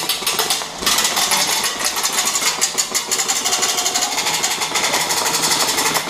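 Airsoft gun firing on full auto: a rapid, even stream of shots that starts about a second in and keeps going.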